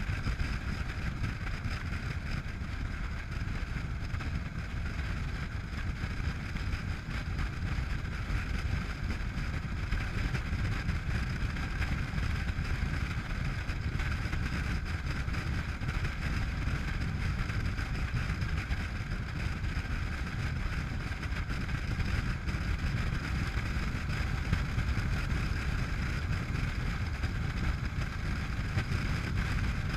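Steady wind rush on the microphone over the running engine and road noise of a Honda NC700X parallel-twin motorcycle cruising at an even speed.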